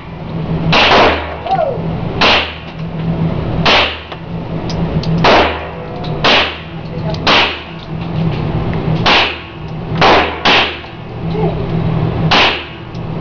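Beretta Cx4 Storm semi-automatic carbine firing about ten single shots at a steady, unhurried pace, roughly one every second or so, with two in quick succession near the end.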